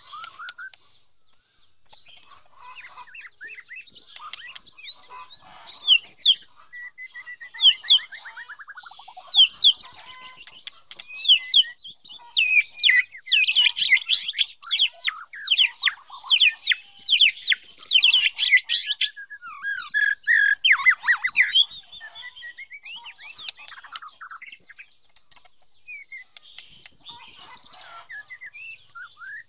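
White-rumped shama singing a varied run of clear whistled phrases, slurred notes and fast trills, busiest and loudest in the middle and thinning out near the end. It is a female's song of the kind played to caged males to spur them to sing.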